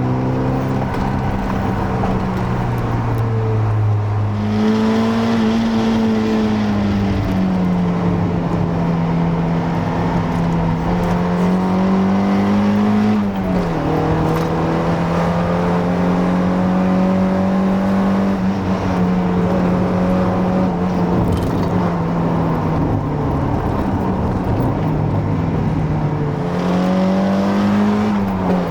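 Mazda MX-5 Miata NA's 1.6-litre four-cylinder engine running through a near-stock exhaust, with a K&N air filter on the intake, pulling at mostly steady revs. The engine note jumps up sharply about four and a half seconds in, drops about thirteen seconds in, and rises then falls again near the end.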